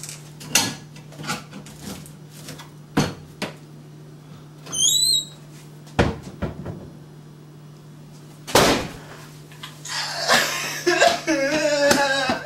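Kitchen knocks and clacks from cupboard doors closing and items handled on the counter, with a brief high squeak about five seconds in. In the last couple of seconds a man breaks into loud, wavering crying.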